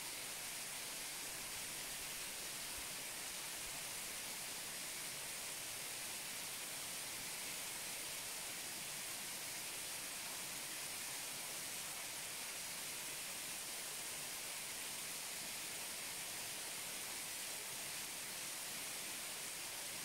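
Waterfall filmed up close: a steady, even rush of falling water, brightest in the high range and with no change in level.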